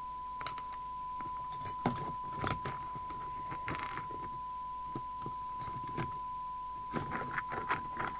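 A steady test tone from the CB radio receiving the signal generator's modulated test signal. Over it come short clicks and rattles of a test lead and connectors being handled.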